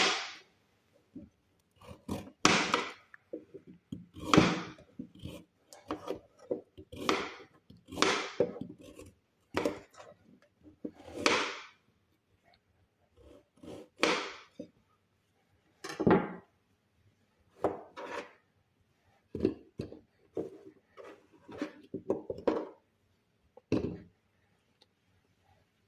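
Pieces of carrot dropped one at a time into a blender jug: an irregular run of short knocks and thuds, about one a second, pausing briefly about halfway through.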